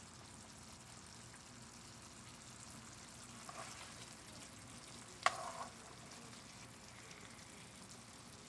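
Al pastor and carne asada with pineapple and peppers sizzling faintly in a saucy skillet while metal tongs stir and turn them. About five seconds in, there is a sharp clink of the tongs against the pan.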